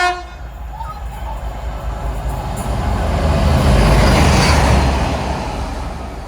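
A train passing through the station at speed, its rumble building to a peak about four seconds in and then fading. A brief horn note sounds right at the start.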